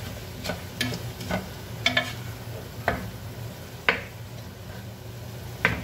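A wooden spoon stirs chicken pieces in a coated pot and knocks sharply against the pot several times at an uneven pace. Under the knocks there is a low, steady sizzle of the chicken frying.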